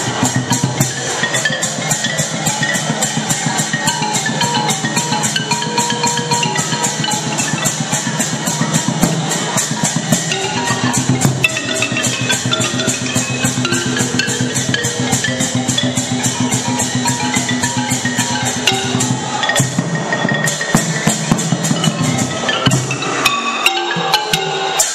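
Thai classical ensemble music: a mallet-struck xylophone melody over drums, with small cymbals ticking a steady fast beat.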